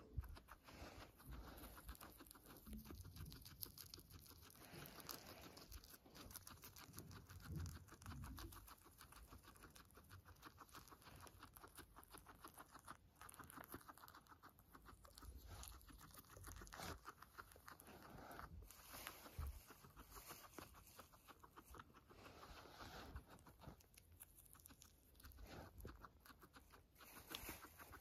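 Silkie guinea pig chewing dandelion leaves: a faint, rapid run of small crunches and tearing sounds as it bites and grinds the greens.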